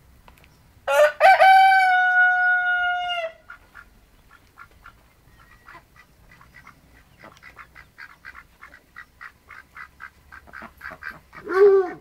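A rooster crows once about a second in, ending in a long held note. Then white domestic ducks give a run of short, soft quacks, about three a second and coming faster, with a louder call just before the end.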